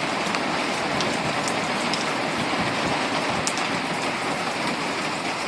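Heavy rain falling steadily, with a few sharp ticks of drops.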